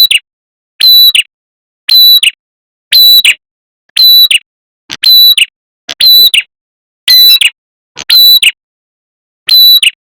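Recorded lure call of a red-headed prenjak (prenjak kepala merah), a small warbler, repeating loudly about once a second. Each note is a short, high, clipped chirp with a brief held pitch, separated by silence.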